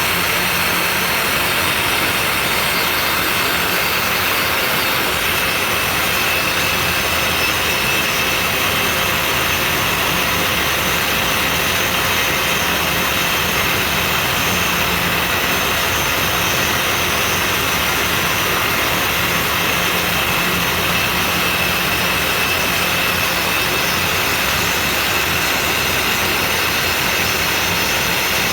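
Dust extraction vacuum running steadily on a CNC 3018 Plus desktop router: an even rushing noise with a faint steady high whine.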